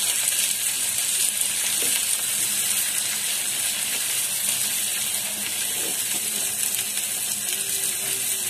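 Sliced onions and garlic frying in mustard oil in a pan, a steady sizzle, stirred now and then with a spatula.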